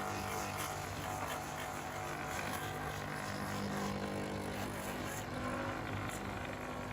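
A machine running steadily, with a constant low hum and a noisy whir over it.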